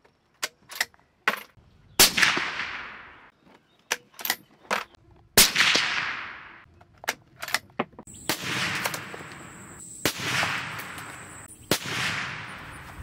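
Suppressed .308 Winchester bolt-action rifle firing a string of about five shots, each a sharp crack trailing off in a long echo. Short metallic clicks between the first shots are the bolt being cycled.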